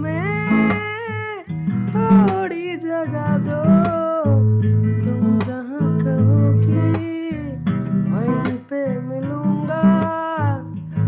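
A young man singing a Hindi love song with long held, sliding notes, accompanying himself with steady strummed chords on an acoustic guitar.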